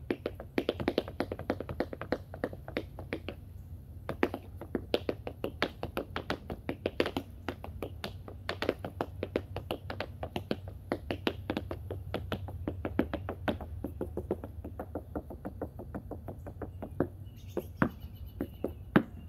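Tap shoes striking a wooden tap board in quick, unbroken runs of sharp metal taps, several a second.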